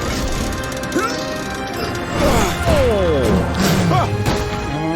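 Cartoon sound effects over background music: crashing, smashing hits and several sliding pitch swoops, mostly falling.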